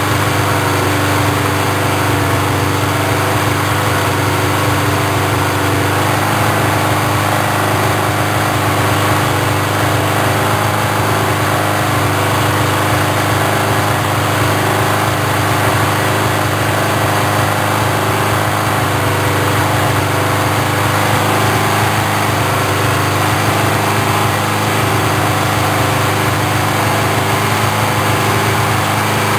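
Four-cylinder motorcycle engine idling steadily while its carburetors are synchronized against a vacuum manometer, its note shifting slightly about six seconds in.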